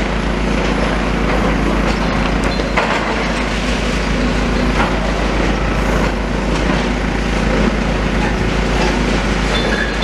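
Demolition excavator working on a building: its diesel engine runs steadily while rubble and timber crunch and crack, with a couple of sharper cracks about three and five seconds in.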